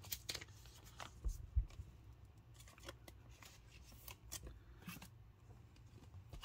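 Baseball trading cards being handled and laid down on a table: scattered soft slides and light clicks, with two low knocks about a second and a half in.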